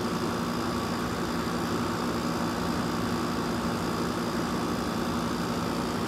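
Mid-1980s Emerson Quiet Kool 7000 BTU air conditioner with a rotary compressor, running steadily: a steady hum under an even rush of air from the back. It is working as it should.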